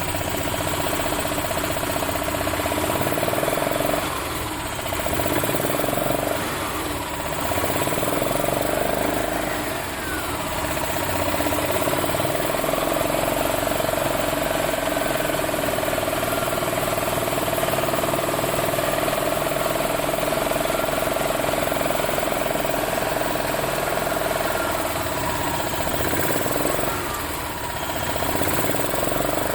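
Single-cylinder four-stroke engine of a Yamaha G23A utility cart running steadily, its speed dipping and picking back up a few times. It runs after its push rod was put back in place and its carburetor cleaned, the repair for a crank-no-start.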